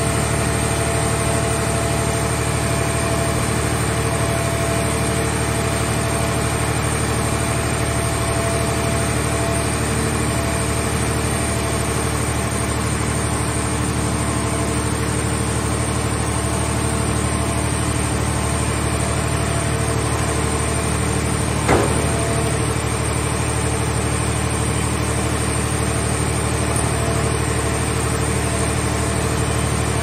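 Hydraulic machinery of a scrap car baler and its grab arm running with a steady drone and hum while the arm handles a car, with a single knock about two-thirds of the way through.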